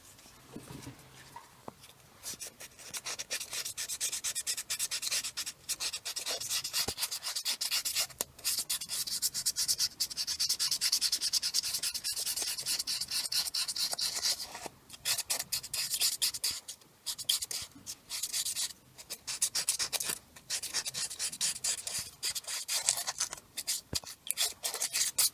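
Fine 320-grit sandpaper rubbed by hand in quick back-and-forth strokes over the cylinder head's exhaust manifold mating surface, a scratchy hiss with short pauses, starting about two seconds in. It is scouring rust and dirt off the flange so a new gasket can seal.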